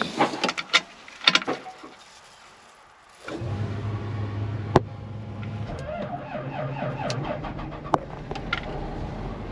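A few clicks, then about three seconds in the cotton picker's diesel engine starts on a cold morning and settles into a steady idle.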